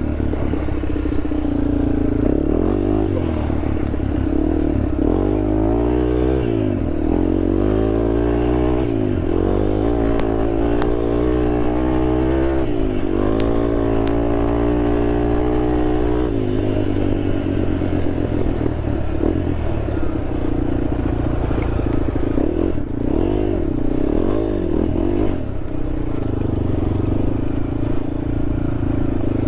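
Honda TRX sport quad's engine running under way off road, its pitch rising and falling over and over with the throttle, busiest in the first half, then holding steadier.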